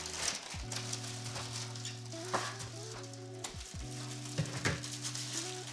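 Plastic mailer and bubble wrap crinkling and rustling as hands unwrap a package, over soft background music with held notes.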